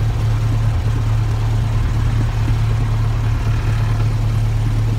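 Light airplane's piston engine and propeller running at a steady drone, heard inside the cabin.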